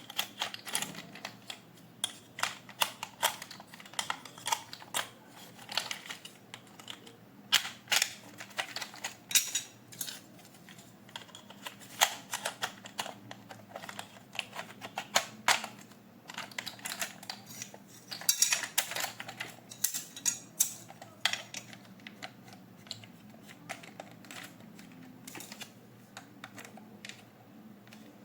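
Toy packaging being handled: irregular clicks, taps and rustles of cardboard and plastic, with a denser rustling stretch about two-thirds of the way through.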